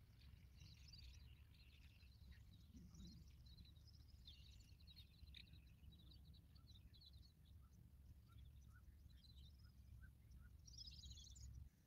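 Faint rural ambience: small birds chirping and twittering on and off, with a brief cluster of chirps near the end, over a low steady rumble that cuts off just before the end.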